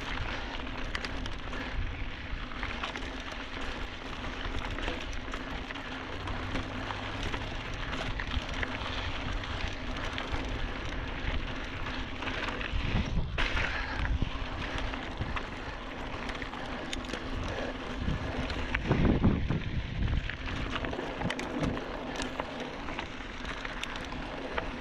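2016 Giant Trance 2 mountain bike rolling along a dry dirt trail: tyres on dirt and loose stones with many small clicks and rattles, under steady wind noise on the microphone, with louder rushes about 13 and 19 seconds in.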